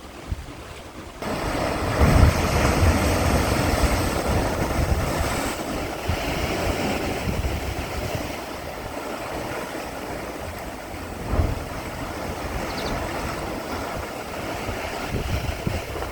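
Sea surf washing and crashing in a coastal blowhole, with wind buffeting the microphone. A loud surge about two seconds in and another brief one near eleven seconds.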